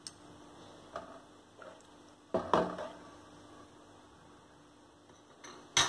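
Light clinks of metal cookware, with a louder clatter about two and a half seconds in and a sharp clink near the end.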